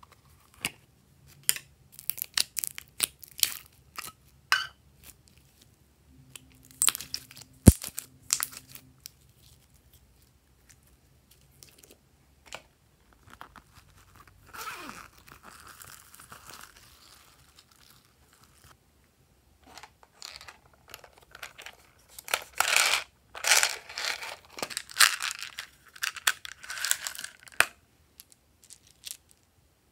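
Hands working small plastic slime containers and a fabric pouch open: scattered sharp plastic clicks and snaps, one especially sharp snap about eight seconds in, then soft rustling, and a dense stretch of rasping, tearing-like noise in the last third.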